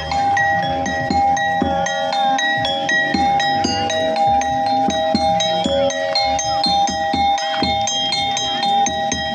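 Music: a held chord under short high notes that repeat evenly, about three a second.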